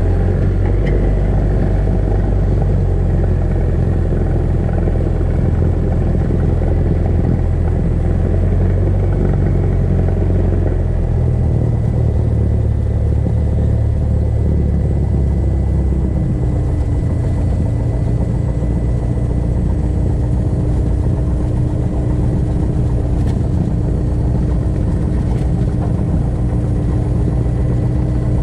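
Cessna 172 Skyhawk's piston engine and propeller running at low power while the plane taxis, heard from inside the cabin as a steady drone. Its note settles slightly lower a little past midway.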